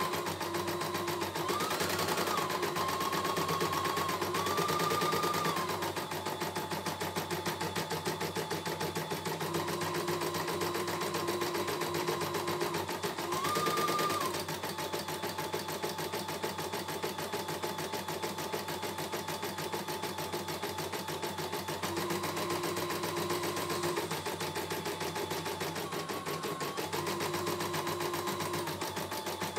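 CNY E900 computerized embroidery machine stitching a design: a fast, even run of needle strokes, with a motor whine that steps up and down in pitch every few seconds as the hoop moves.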